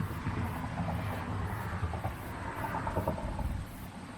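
A vehicle passing by outdoors: a low rumble with road noise that swells and then fades away near the end.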